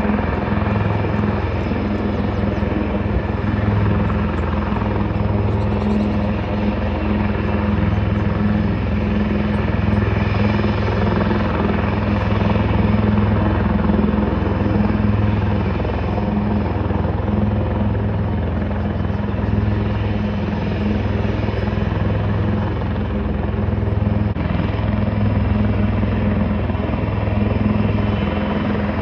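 A helicopter running steadily on the ground: an even drone of turbine and rotor with a strong low hum and no change in pitch.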